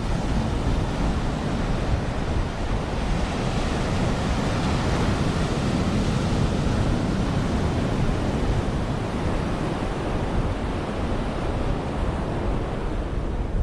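Sea waves washing onto a sandy beach: a continuous hiss of surf that swells a few seconds in and eases off again, with wind rumbling on the microphone.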